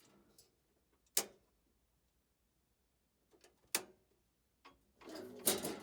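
Sharp clacks of a circuit breaker being switched off and back on to reset a furnace: one loud clack about a second in, then a few lighter clicks. A louder rush of noise begins near the end.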